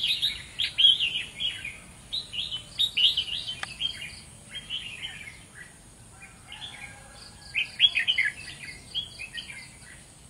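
Red-whiskered bulbuls calling in quick chattering phrases, in several bursts with short pauses between them.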